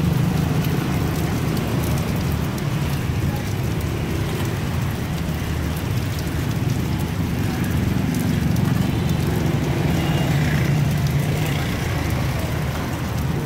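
Steady street-side noise: a low traffic rumble under a continuous hiss.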